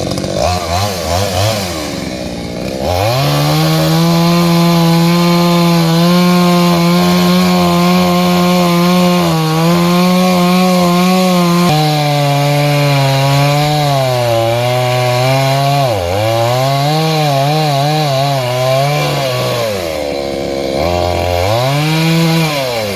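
Chainsaw cutting through a coconut palm trunk. The engine rises from a low speed to high revs and holds steady for several seconds. Its pitch then sags and wavers as the chain bites, drops briefly about two-thirds of the way through and falls low again near the end before revving back up.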